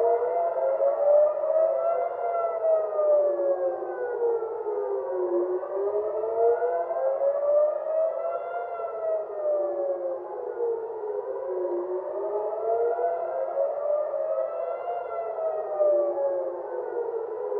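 Civil defence air-raid sirens wailing. The pitch rises and falls in slow cycles of about six seconds, and more than one siren sounds out of step with the others. The wail warns of an incoming missile attack and tells people to take shelter.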